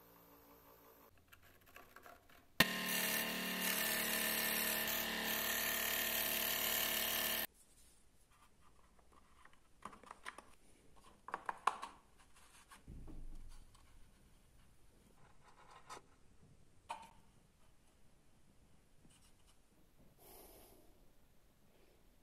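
Electric disc sander running loudly for about five seconds: a hum of several steady tones under a hiss, starting and stopping abruptly. Afterwards only light clicks, knocks and rubbing as small wooden parts are handled and fitted together.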